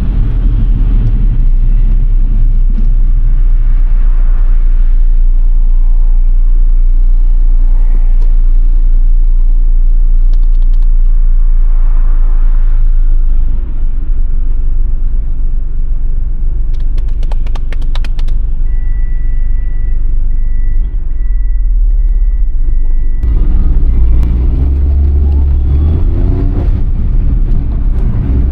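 Suzuki Alto Works HA11S on the move: a loud, steady low rumble of engine and road noise, with the engine note rising as it picks up revs in the last few seconds. A faint thin high tone sounds for a few seconds around the middle.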